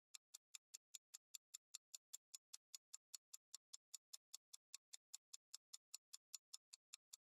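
Countdown-timer sound effect: faint, steady clock-like ticking, about five ticks a second.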